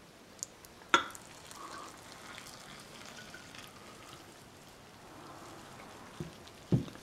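Faint pouring and stirring as boiling water goes onto dry pancake mix in a glass measuring cup and a fork works it in, with a sharp clink about a second in.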